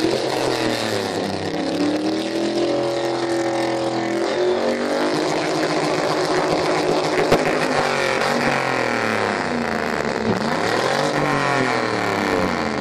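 Car engines revving hard, their pitch sweeping up and down again and again, as the cars shoot flames from their exhausts. A sharp pop comes about seven seconds in.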